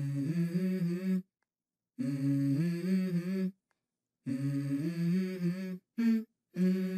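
Background music: a wordless vocal melody in short phrases of a few stepping notes, each cut off abruptly into complete silence.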